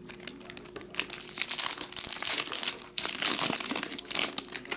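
Foil wrapper of a trading card pack crinkling as hands tear it and peel it open, starting about a second in, with a brief pause just before three seconds.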